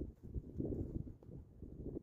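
Footsteps in snow: a run of irregular, muffled thuds.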